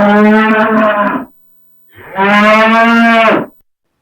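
Ox bellowing: two long, steady calls, one after the other.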